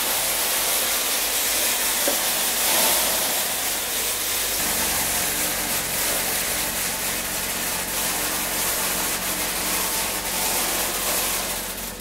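Electric fan winnower running: a steady rushing hiss of its air blast as maize kernels pour through and the chaff and dust are blown out, over a faint motor hum. It dies down near the end.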